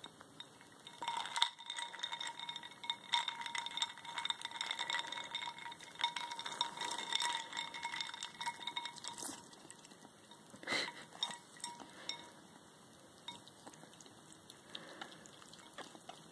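Ice cubes clinking against each other and against a ceramic water bowl as ferrets nose and dig at them in the water, with small splashes. The clinks come thick and fast for the first half, there is one sharp clink near eleven seconds, and after that they are sparse and quieter.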